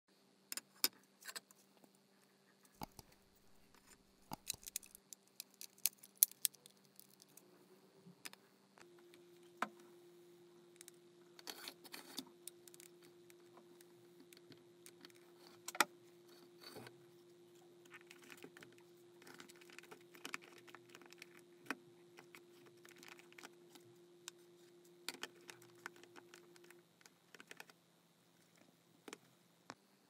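Scattered clicks, taps and light rattles of a plastic wall clock's case, movement and hands being handled and set down on a cutting mat, over a faint steady hum.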